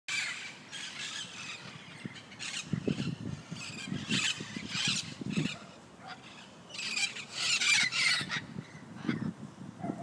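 A flock of wild parrots perched in a tree, squawking and screeching in overlapping harsh calls that come in clusters, loudest about seven to eight seconds in.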